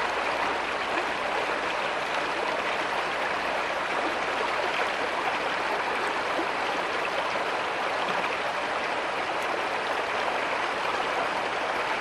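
Steady rushing of running water from a stream, an even hiss without breaks.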